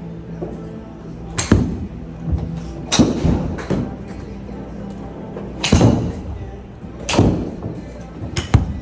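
Golf shots with a pitching wedge in an indoor simulator bay: about five sharp cracks of clubface striking ball and ball hitting the screen, over background music.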